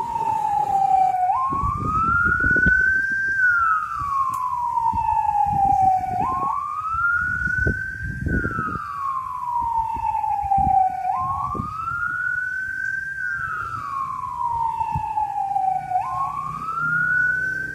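Siren wailing in slow, even cycles: each cycle jumps up, climbs to a high note, then slides slowly back down, repeating about every five seconds, with low noise underneath.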